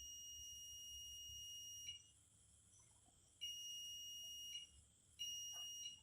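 Multimeter continuity buzzer giving a steady high beep, signalling a closed circuit between the probes: the beep stops about two seconds in, then sounds twice more, each time for about a second.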